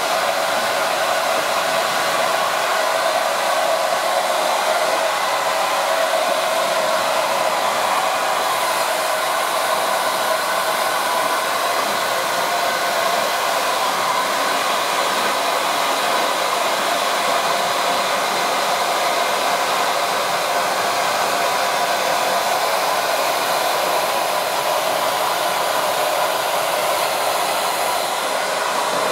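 JMW MA6001A hair dryer running steadily: a continuous rushing blow with a faint whine, at an even level throughout.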